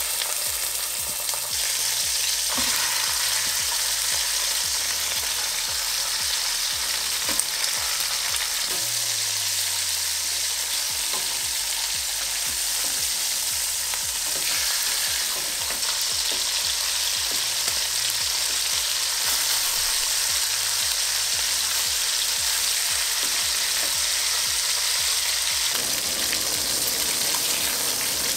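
Chicken pieces sizzling steadily as they fry in hot oil in a stainless steel pot, with occasional clicks of a spatula and tongs turning them against the pot.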